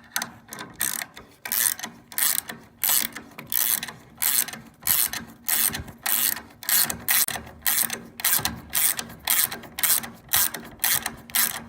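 Ratchet wrench clicking in quick back-and-forth strokes, about two a second, as it cranks a nut down a threaded rod to pull a framed wall plumb.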